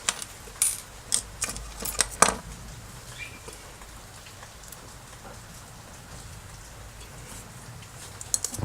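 Steel lock pick clicking and scraping against the pins inside a cheap four-pin pin-tumbler lock as it is put in and raked: several sharp clicks in the first two and a half seconds, then faint ticking.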